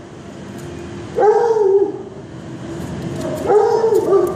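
Dog barking during rough play with another dog: two drawn-out barks, one about a second in and another near the end.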